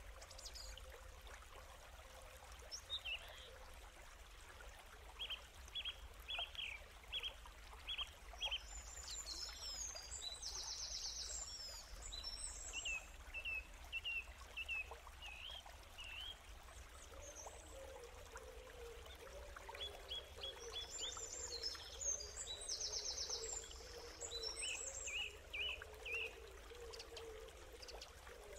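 Small birds singing over a steady background hiss. Runs of short chirps alternate with a longer song phrase that ends in a buzzy trill, and the same pattern comes round about every thirteen seconds, like a looped nature-sound track.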